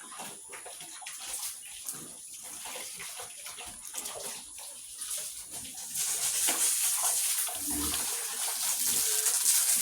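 Pigs eating wet feed mash, a run of wet smacking and slurping. About six seconds in, a louder steady rushing of water starts.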